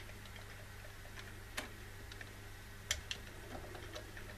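Sharp clicks and small ticks of hard metal and plastic parts being handled while the Corsair H100i cooler's mounting hardware is fitted by hand at the CPU socket. A single loud click comes about a second and a half in and a quick double click near three seconds, over a steady low hum.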